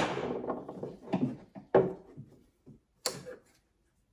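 Small decor pieces being handled on a wooden shelf. A loud knock comes at the start, followed by brief rustling and a few lighter knocks as a pheasant figurine is set down and shifted into place.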